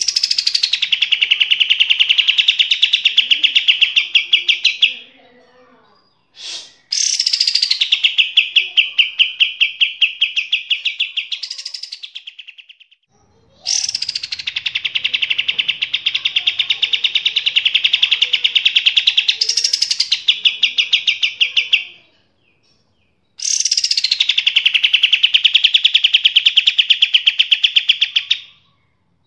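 A songbird singing long, loud phrases, four in all, each several seconds long: every phrase opens with a quick falling sweep and runs into a fast trill of rapidly repeated high notes, with short pauses between phrases.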